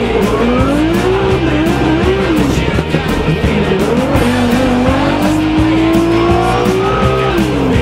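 Drift car engine revving up and down, with tyre squeal, mixed with background music that has a steady beat.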